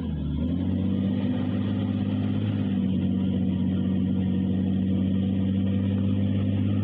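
Heavy earth-moving machine's diesel engine running, dipping briefly in pitch at the start and then holding steady.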